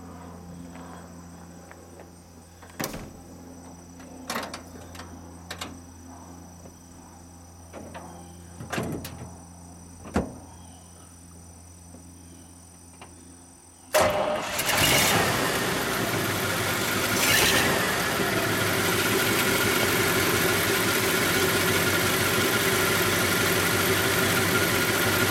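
A few short knocks and clicks, then about fourteen seconds in the 1942 Cadillac's 346 cubic-inch L-head (flathead) V8 starts abruptly and settles into a steady, smooth idle.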